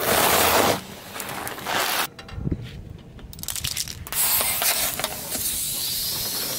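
Car tyre crushing chocolate-coated candies on asphalt, a loud crunching burst at the start followed by scattered crackles. About four seconds in, a steady hiss begins as the tyre rolls over plastic disposable lighters.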